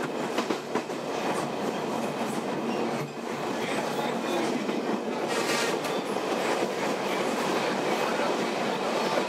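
Passenger train running, heard from inside the carriage: a steady rumble and rattle of the wheels on the track, with a few clacks and a brief high squeal about halfway through.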